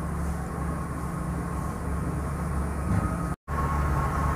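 Mathri deep-frying in hot oil in a steel kadai: a soft, steady sizzle over a louder steady low hum. The sound breaks off for an instant about three and a half seconds in.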